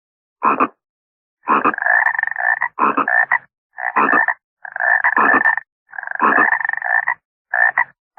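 Frog croaking in a string of about seven calls, some brief and some over a second long, each a rapid rattling croak with a held tone, separated by abrupt dead silence.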